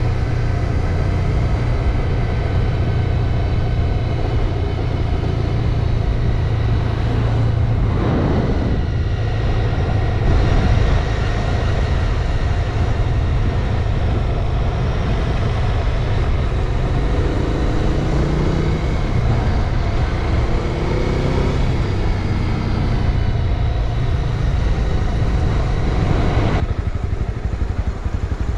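Motorcycle engine running steadily while riding, with a rush of wind noise over it. Near the end the sound drops off as the engine eases.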